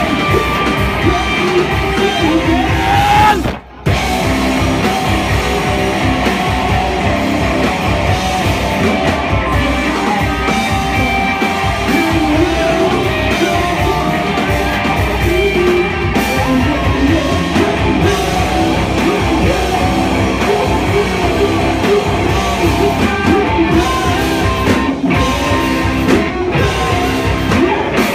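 Live rock band playing loud, with distorted electric guitars and sung and shouted vocals. The whole band stops dead for a moment about three and a half seconds in, then comes back in.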